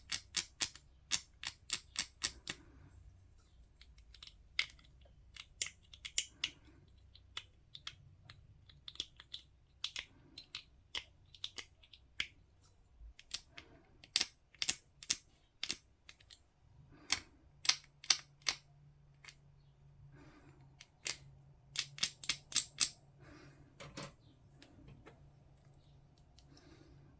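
A mould line remover scraping mould lines off a small plastic miniature part: quick runs of sharp clicky strokes, several a second, with short pauses between the runs.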